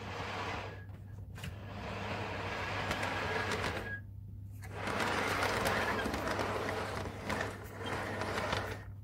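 HO-scale model train running along the track: the locomotive's small electric motor whirring and the wheels rolling on the rails. The sound cuts out briefly about four seconds in, then resumes.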